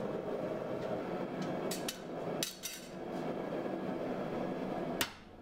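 Steel tools clinking on a steel swage block as a punch is set into a red-hot 4140 steel billet, followed by a single hammer blow on the punch near the end, driving it through to open the hatchet's eye. A steady low background noise runs underneath.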